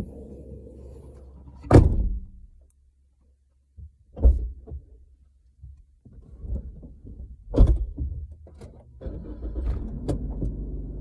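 Heavy thuds of the car's doors or tailgate shutting, heard from inside the trunk of a Suzuki Swift ZC72S, three times about two, four and seven and a half seconds in. From about nine seconds in comes the steady low rumble of the car running.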